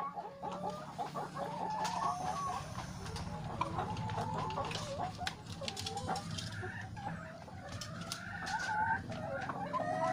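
A flock of chickens clucking and calling over one another, with a steady low hum underneath.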